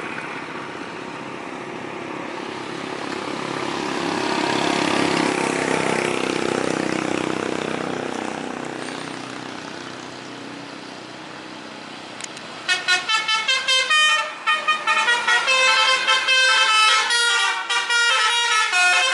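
Heavy vehicle noise swells and fades over the first ten seconds or so. Then, about two-thirds of the way in, a Basuri telolet multi-tone bus air horn starts playing a fast, choppy melody of rapidly changing notes.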